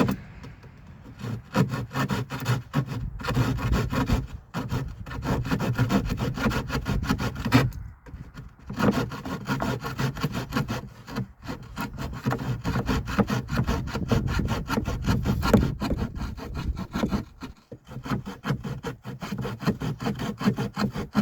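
Handsaw cutting through a wooden board in quick, steady back-and-forth strokes, with a few brief pauses between runs of strokes.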